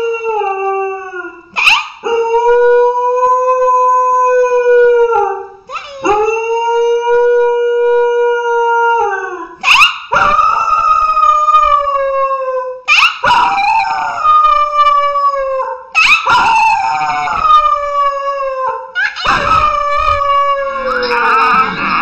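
A dog howling in a series of long drawn-out notes with short breaks between them. The first few are held at a steady pitch, and the later ones start higher and slide down.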